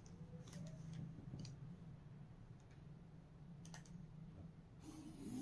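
Near silence: a steady low room hum with a few faint clicks and a short scratch near the end, from a pen being drawn along a ruler on pattern paper.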